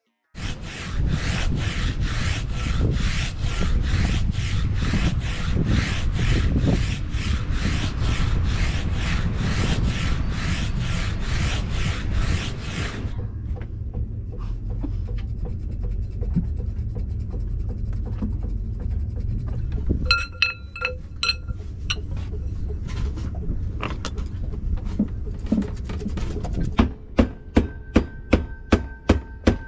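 Rhythmic rasping strokes, about two a second, for the first half, like a hand file or sanding block worked back and forth on metal. A few light ringing metal taps follow, then near the end a quick run of mallet blows on the windvane's metal tube, about three a second.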